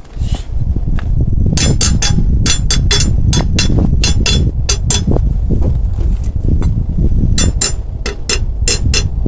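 Sharp metallic clinks and taps of tools working on a car wheel, coming in irregular runs of several a second, over a low steady rumble.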